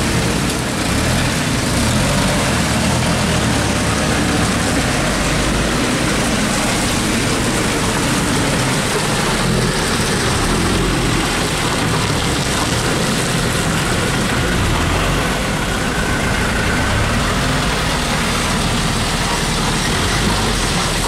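Diesel engines of loaded light trucks labouring as they crawl through deep mud, loud and steady throughout.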